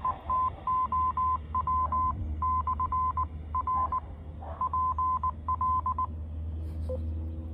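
Morse code: a single beep of about 1 kHz keyed in short and long pulses over a low hum and hiss, stopping about six seconds in. The captions decode it as 'attention all alien fleet units, commence Earth invasion now'.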